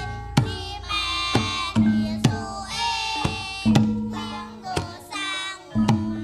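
Javanese gamelan ensemble playing jaranan music: sharp struck metal notes and drum strokes over a ringing low tone, with a voice singing a melody on top.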